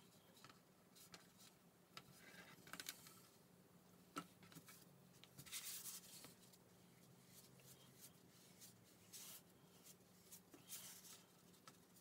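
Near silence over a low steady hum, with faint rubbing and light taps as hands and a small plastic ball tool work a piece of gum paste on a work board; the longest rub comes about halfway through.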